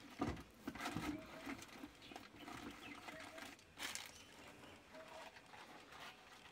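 Faint scattered knocks and rustling from a bull elephant rummaging through a camp kitchen, with a sharper knock just before four seconds in. Birds call faintly in short repeated notes in the background.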